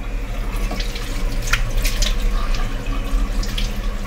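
Bathroom tap running into the sink, with several short splashes as water is scooped up by hand, over a steady low hum.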